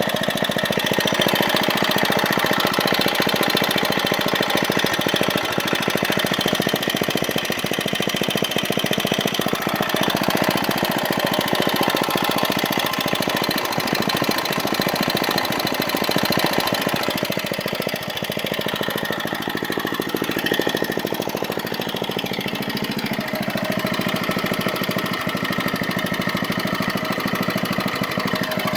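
1995 Briggs & Stratton small engine on a go-kart running steadily with a rapid, even firing beat, easing slightly about two-thirds of the way through.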